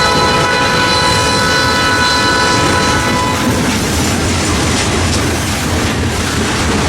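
A diesel freight locomotive's air horn sounds a chord and cuts off about three seconds in, while the train rumbles past with wheels clattering over the rail joints.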